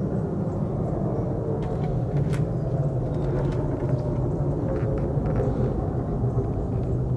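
Steady low rumble with a constant deep hum and a few faint clicks.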